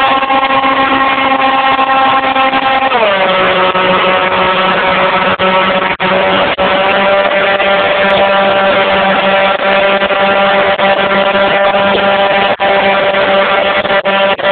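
Model airplane's motor and propeller running at a steady pitch, then throttled back about three seconds in, the pitch sliding down and holding lower. The sound drops out for an instant a few times.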